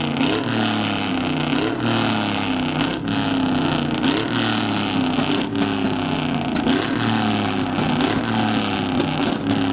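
Pickup truck engine revving through a loud exhaust, its pitch rising and falling again and again.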